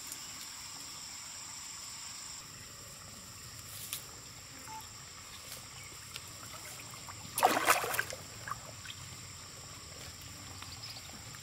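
Pond water trickling and splashing, with one loud splash about seven seconds in and a few small knocks. A steady high whine runs underneath, strongest for the first couple of seconds.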